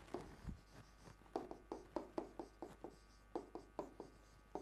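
Stylus tapping and rubbing on an interactive whiteboard screen as a line of Japanese is handwritten: a run of short, faint taps, about three a second from about a second in.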